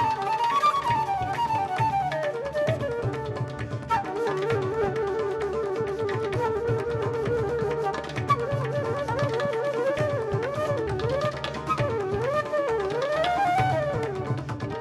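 Live raga music: a wind instrument plays a melody that slides down from high, then wavers and bends widely in ornamented turns, over steady hand-drum accompaniment.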